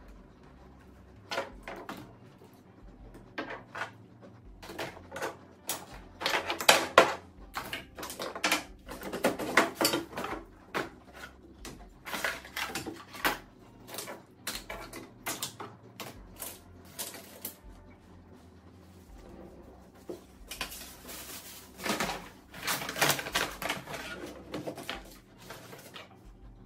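Plastic toiletry bottles, jars and tubes clacking and knocking against each other as they are handled, sorted and dropped into a drawer, in irregular flurries of clicks with short lulls between.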